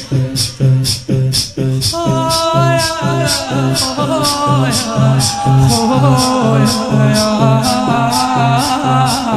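Shi'a lamentation chant (shour latmiya) between verses: a steady beat of about two strokes a second, each a deep thump with a hissy top. From about two seconds in, a voice sings a wordless, wavering line over the beat.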